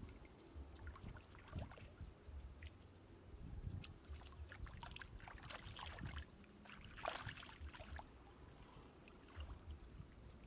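Shallow muddy water sloshing and splashing in irregular bursts as a person wades through it and reaches under the surface with a hand.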